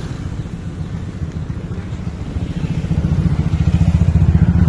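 Low, pulsing engine rumble that grows louder as a motorcycle rides past close by, loudest about four seconds in.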